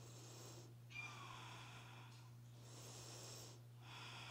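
Near silence: a few slow, faint breaths through the nose, each swelling and fading about every second and a half, over a low steady hum.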